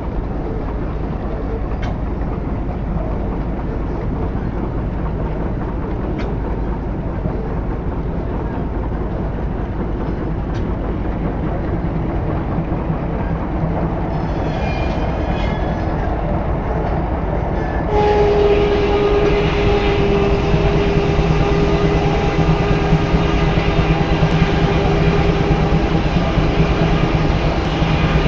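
Steam-powered sawmill running with a steady mechanical clatter. About eighteen seconds in, a louder steady pitched whine joins it and holds for about ten seconds; a short higher-pitched sound comes a few seconds before it.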